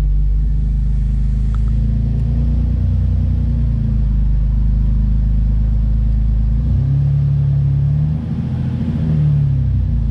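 Jeep Wrangler TJ's 4.0 litre inline-six engine running at idle just after a start, its pitch rising briefly about seven seconds in and settling back near the end.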